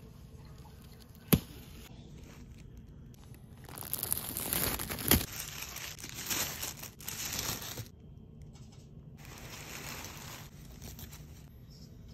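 Tissue paper rustling and crinkling as a hand unfolds it in a gift box, louder through the middle with a softer stretch near the end. A single sharp click comes about a second in.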